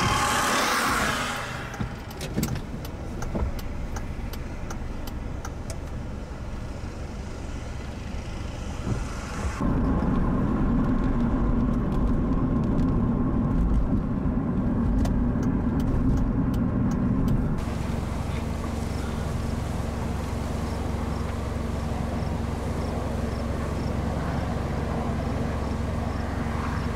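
Car cabin noise from a vehicle: steady engine and road noise, with scattered sharp ticks over the first nine seconds or so. The sound changes abruptly twice: it gets louder with a deep rumble about ten seconds in, then settles to a steadier hum about eighteen seconds in.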